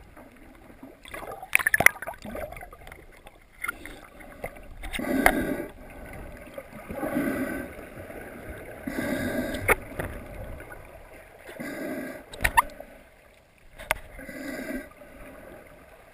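Underwater sound of a snorkeler breathing through a snorkel, each breath swelling and fading about every two seconds, with gurgling water and a few sharp clicks.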